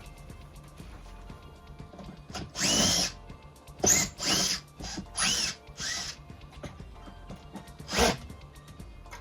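Power drill run in about six short bursts, the longest under a second, its motor whine rising in pitch each time it spins up.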